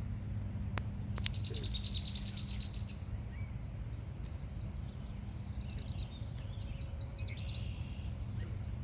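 Marsh songbirds trilling: several high, fast runs of repeated notes, each lasting one to two seconds, over a steady low rumble of background noise.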